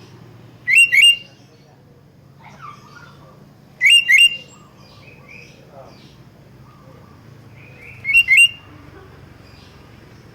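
Sooty-headed bulbul calling: three loud, short two-note calls, each note rising, about four seconds apart, with softer bird calls in between.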